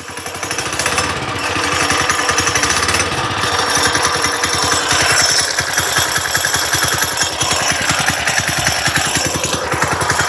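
Trailmaster MB200-2 mini bike's stock 196cc single-cylinder engine running just after its first pull-start, building up over the first second or so, with a rapid metallic clanking. The clanking comes from the 30-series torque converter, not from inside the engine.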